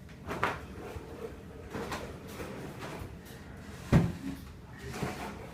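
A few separate knocks and bumps, like things being handled or bumped against furniture, the loudest about four seconds in, over a faint steady hum.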